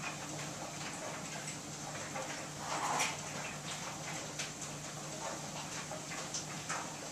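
Front-loading clothes dryer running with a steady low hum, the tumbling load knocking and ticking irregularly in the drum, with a louder knock about three seconds in.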